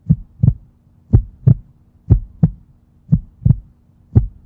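Heartbeat sound effect: paired low lub-dub thumps, about one pair a second, over a faint steady hum.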